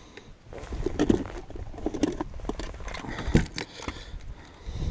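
Irregular clicks, knocks and rustling of hands handling gear and a caught bass aboard a plastic kayak, with one sharper knock about three and a half seconds in.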